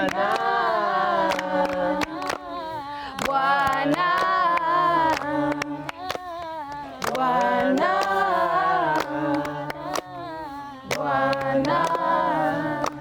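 A group of voices singing a Swahili gospel praise song unaccompanied, with hand claps keeping time. The singing cuts off suddenly at the very end.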